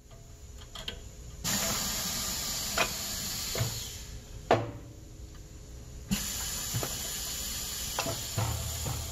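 Pneumatic clamp of a Morgan Press injection molder cycling: compressed air hisses as the clamp moves, with small clicks, a sharp clunk about four and a half seconds in as the mold clamps shut, then air hisses again from about six seconds in as the clamp is released.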